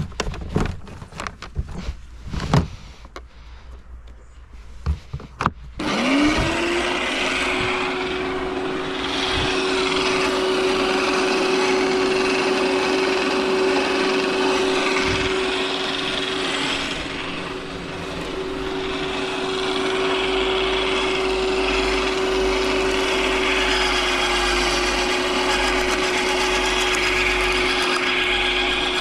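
Knocks and rattles of branches being handled at an electric garden shredder, then about six seconds in the shredder's electric motor starts, spinning up quickly to a steady hum that runs on.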